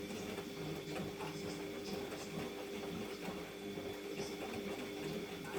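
Siemens washing machine running its main wash: a steady motor hum with faint ticks as the drum turns.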